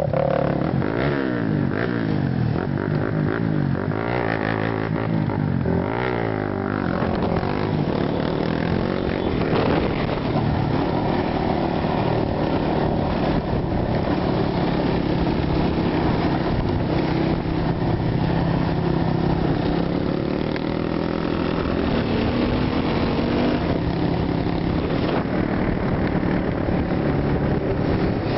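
Off-road motorcycle and quad bike engines running on a dirt trail, the pitch rising and falling as the throttle opens and closes. Near the end of the second third the engine note climbs slowly in one long rev.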